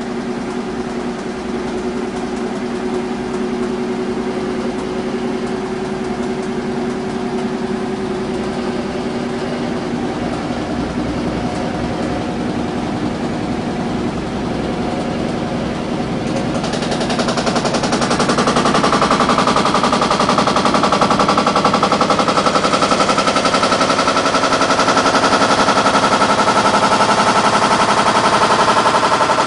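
Samsung washing machine running its empty drum with a steady motor hum; about seventeen seconds in it speeds up and gets louder, with a rapid continuous rattling and knocking. The machine has a balance fault and cannot finish its cycle even when empty.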